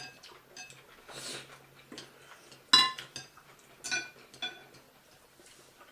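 Cutlery clinking against a dish during a meal: a few light ticks, then two ringing clinks, the loudest about three seconds in and another about a second later.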